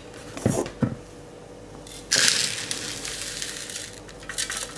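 A ground dry oat mixture pouring out of a food processor bowl into a mixing bowl: a couple of light knocks of the bowl being handled, then a steady hiss of the dry mix sliding out for about two seconds, and a few faint clicks near the end.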